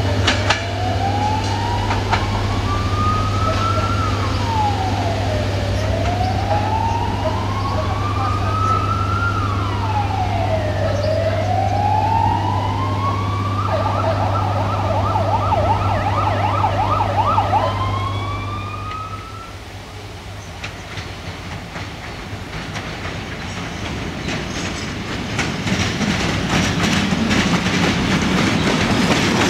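An emergency-vehicle siren wails, sliding slowly up and down about every five seconds, switches to a fast yelp for a few seconds, then stops. Near the end an LDH diesel locomotive and its train come up with a rising rumble.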